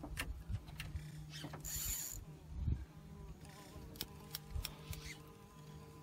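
Fishing reel being cranked under load as a large peacock bass is reeled in: a steady mechanical whir with scattered clicks, a brief hiss about two seconds in and a low thump just after.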